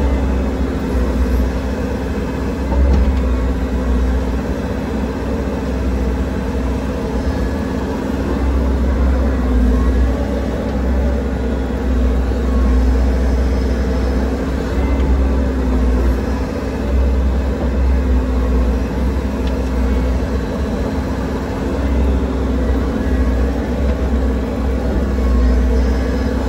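Mini excavator's diesel engine running steadily at about 1,900 rpm, heard from inside the closed cab: a deep, even rumble with small swells in level.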